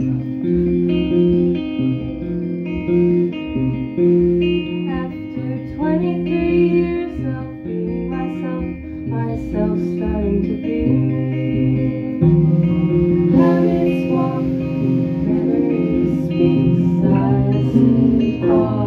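Live band playing: electric guitar and bass guitar holding long notes through changing chords, with a voice singing at moments.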